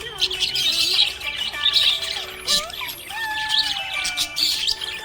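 Budgerigars chirping: a dense, continuous run of quick high chirps and squawks.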